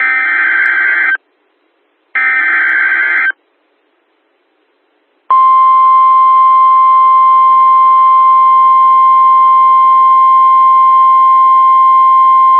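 Two Emergency Alert System SAME header data bursts, each about a second of harsh digital warbling, a second apart. After a two-second gap, a steady single-pitch alarm tone starts about five seconds in: the NOAA Weather Radio 1050 Hz warning alarm that announces a warning is about to be read.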